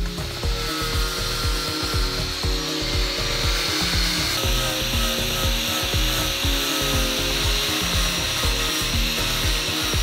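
Handheld angle grinder grinding a sailboat's fibreglass skeg, a steady high-pitched whine with a grinding rasp as it strips antifouling and gelcoat back to the glass to expose cracks. Background music with a steady beat plays under it.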